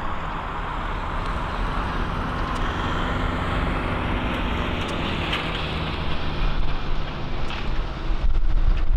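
Jet airliner engines heard at an airport: a steady broad roar with a faint hum under it, growing louder and heavier near the end.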